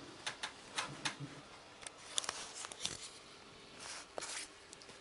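Rain drips tapping on a hard surface close to the microphone: irregular sharp taps, a dozen or so, over a faint steady hiss, with a brief soft rustle about four seconds in.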